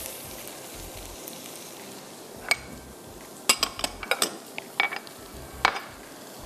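Sliced onions frying quietly in oil with a steady sizzle. Over it come sharp metal clinks and knocks from a steel strainer and bowl being handled: one about two and a half seconds in, then a quick run of them in the second half.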